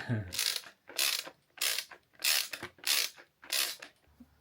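Socket ratchet wrench being worked in about six even back-and-forth strokes, each a short rasping run of clicks, stopping shortly before the end.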